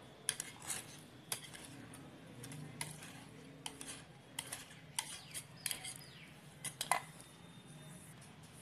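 A kitchen utensil clinking and tapping against a metal cake tin as thick cake batter is poured in and spread: irregular light clicks, a few every second or so.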